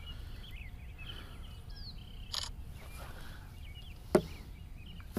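Quiet outdoor ambience on a small boat: a low steady rumble with faint, short bird chirps, and two light knocks about two and four seconds in from gear being handled on the boat.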